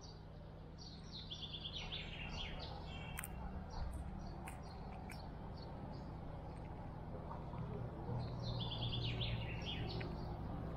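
A songbird singing two phrases of quick chirps that step down in pitch, one about a second in and one near the end, with a few sharp clicks between them. A steady low hum runs underneath.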